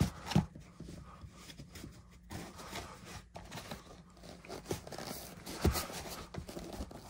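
Cardboard ammunition box being pushed and worked into a tight cutout in dense foam: irregular scuffing and rubbing of cardboard on foam, with a few soft knocks, the sharpest about half a second in and just before six seconds in.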